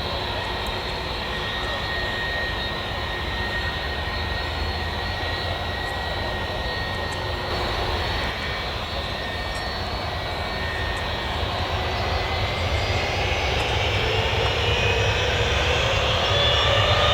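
Jet airliner engines running with a steady rushing noise and a faint high tone, then growing louder over the last few seconds with a rising whine as the engines spool up.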